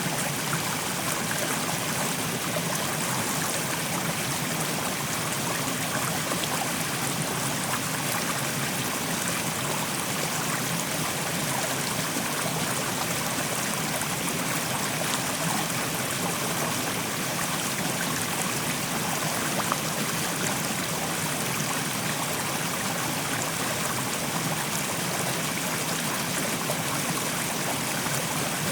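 Fast-flowing mountain stream rushing over rocks, a steady, even rush of water with fine splashing.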